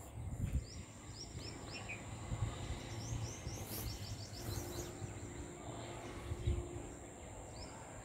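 Rose-ringed parakeets calling: short, high chirps in quick runs about a second in and again from about three to five seconds, over a low rumble.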